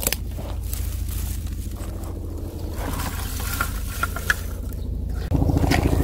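Helicopter flying overhead: a steady low rotor throb that steps up louder about five seconds in. Over it, dry twigs and grass scrape and rustle as they are handled close by.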